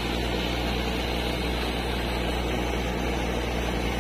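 Steady low drone of an engine from the sand-dredging machinery, with the rushing of sand-and-water slurry gushing out of a discharge pipe onto the riverbank.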